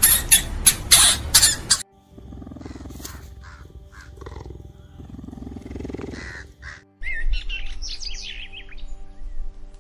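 A rodent crunching food in quick, sharp bites. It gives way to a cheetah's low calls with a few short chirps, and then about seven seconds in to a songbird's quick run of high, falling chirps, over steady background music.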